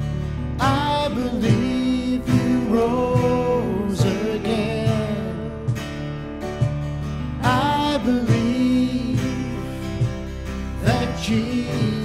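Worship band music led by acoustic guitar, with a melody line sliding into its notes every few seconds, in a stretch between the sung lines of the song.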